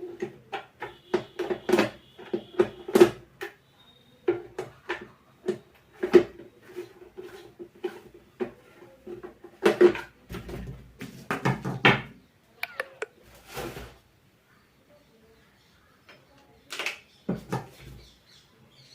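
Irregular clicks, taps and knocks of a mixer grinder's plastic and metal parts being handled during repair, with a short pause about three quarters of the way through.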